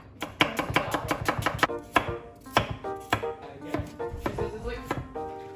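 Chef's knife chopping onion and potato on an end-grain wooden cutting board: a quick run of knife strikes in the first second and a half, then slower single cuts.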